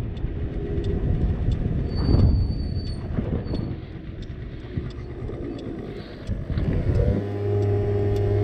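50cc scooter engine running under way with wind noise over the microphone, with a brief high thin squeal about two seconds in. About seven seconds in the engine settles into a steady, even note.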